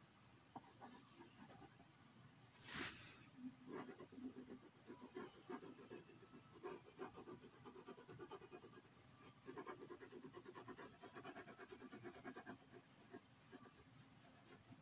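Faint scratching of a mechanical pencil's graphite lead on paper, in quick back-and-forth shading strokes. There is one brief louder rasp about three seconds in, and the strokes come in bursts until near the end.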